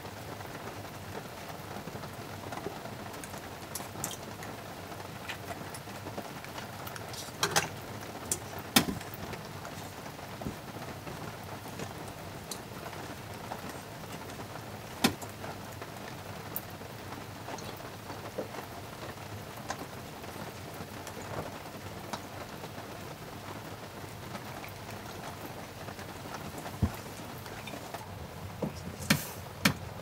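Steady rain falling on a truck camper's shell and windows, heard from inside. A few sharp taps and clicks stand out over it, the loudest about a third of the way in and at the halfway point, with a small cluster near the end.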